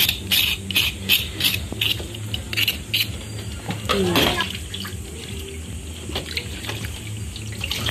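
Knife blade scraping the charred skin off a singed piece of wild boar, quick rasping strokes about three a second. About four seconds in, tap water starts running into a steel pot in the sink as the meat is rinsed by hand.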